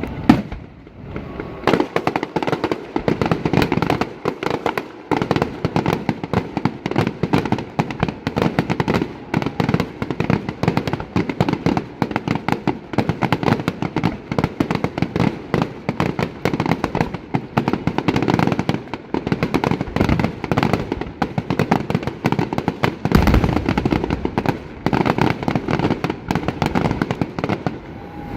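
Fireworks display: a dense, continuous barrage of bangs and crackling explosions, many per second, with a heavy deep boom about 23 seconds in.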